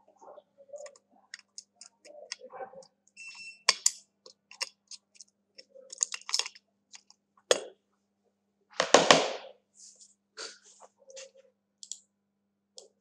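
Small clicks and taps of hands working on an opened smartphone and lifting its motherboard out onto a silicone mat, with one louder rustle about nine seconds in.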